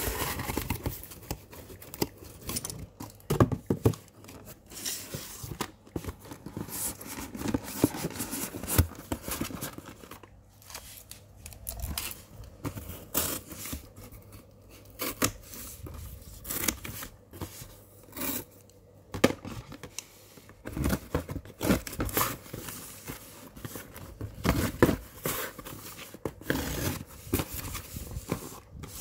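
Corrugated cardboard shipping box being handled and opened by hand: irregular scraping, tearing and crinkling of cardboard and packing tape, with short sharp taps and clicks.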